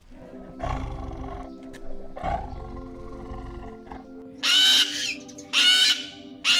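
Tiger growling twice, low and rough, then cockatoos screeching loudly in repeated harsh calls in the second half, over background music with sustained notes.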